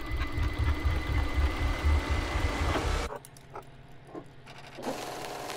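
Rapid mechanical clatter with a heavy, pulsing low end that stops abruptly about three seconds in, followed by a few faint clicks.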